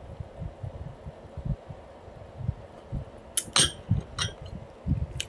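Gulps of a cold drink swallowed from a glass mug, soft low thuds about every half second. About three and a half seconds in, the glass mug clinks as it is lowered toward the table, with another click near the end.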